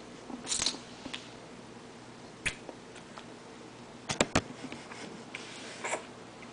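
A toddler eating with her fingers: short wet sucking and smacking sounds from her mouth and fingers. About four seconds in comes a quick run of three sharp clicks.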